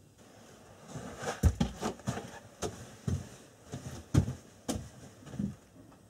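Irregular knocks and clicks of objects being handled, with two heavier thumps.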